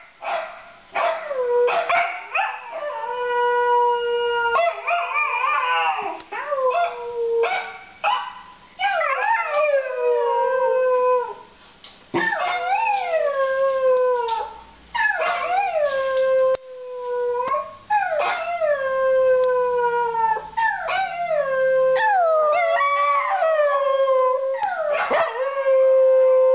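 Pembroke Welsh corgi howling over and over: a long series of howls with short breaks between them. Most howls rise briefly, then slide down and hold a steady note.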